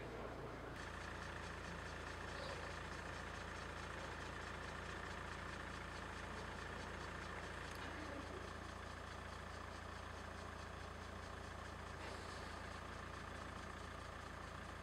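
Faint steady low hum with a light hiss, shifting slightly about a second in.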